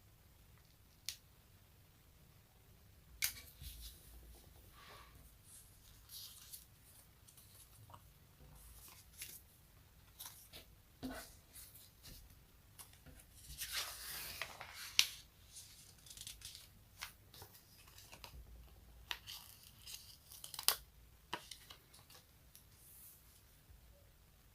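Close-miked sticky peeling and crackling: a tacky surface is pulled apart in short, irregular strokes, with a few sharp snaps and a longer crackling peel about halfway through.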